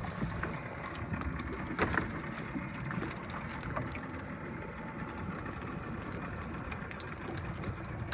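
Small fishing boat at sea: a steady low rumble with scattered knocks and clicks.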